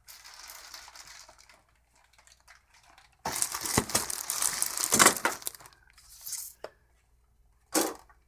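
Toy packaging being handled and shifted about: clear plastic blister windows and card boxes crinkling and rubbing. The loudest stretch is a couple of seconds in the middle, and there is a short knock near the end.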